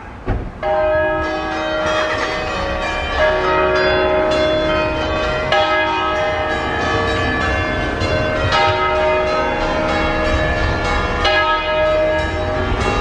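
Church bells from an eight-bell tower tuned in E-flat, swung and rung alla romana (Roman style): the first strike comes about half a second in, then repeated clapper strikes overlap into continuous ringing with long-sustained tones.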